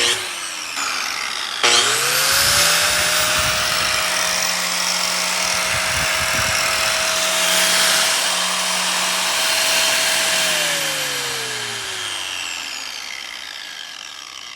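DeWalt 4-1/2 inch angle grinder with a grinding wheel fitted, running free with no load: after a short burst at the very start, it is switched on a couple of seconds in, spins up to a steady high whine, and runs for about eight seconds. It is then switched off and winds down, its pitch falling steadily as it coasts.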